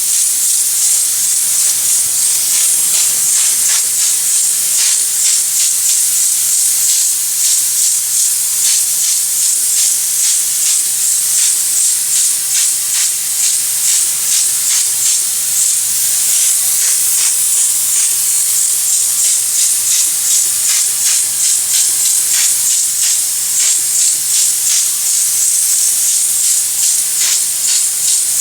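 Pneumatic texture spray gun hissing steadily as it sprays textured bedliner, with a fast fine crackle of spatter running through the hiss.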